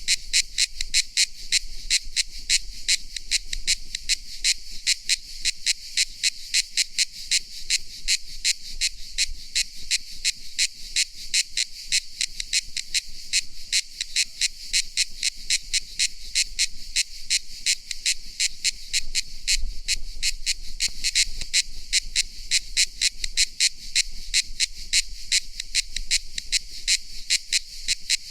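Cicada calling: a steady, unbroken train of short, even, high-pitched pulses, several a second.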